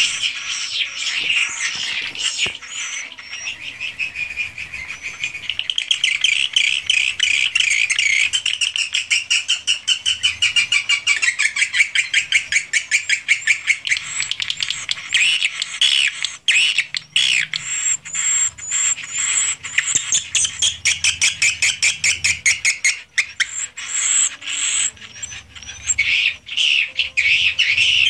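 A flock of edible-nest swiftlets calling inside a swiftlet house: a dense, continuous chatter of rapid high clicks and short twittering chirps from many birds at once.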